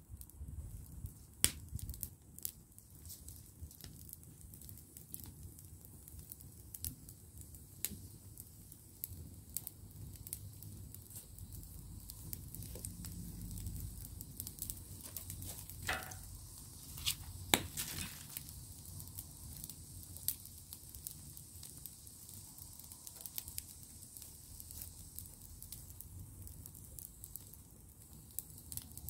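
Open fire of dry twigs and branches crackling, with sharp pops at irregular intervals over a low steady rumble. The loudest pops come about a second and a half in and again near the middle.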